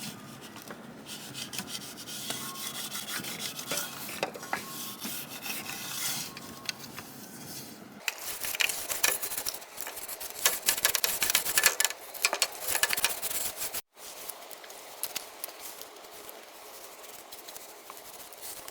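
Irregular rubbing and scrubbing on a surface, busier and louder in the middle, with a sudden brief break about two-thirds of the way through.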